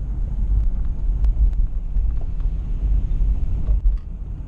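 Vehicle driving, heard from inside the cab: a steady low rumble of road and engine noise, with a few faint clicks.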